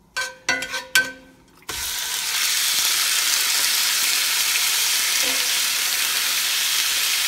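A few sharp metallic clanks of a spatula against a cast-iron skillet. Then, about two seconds in, a loud sizzle starts suddenly as sliced raw deer heart hits hot olive oil on high heat, and it keeps sizzling steadily while the meat is stirred.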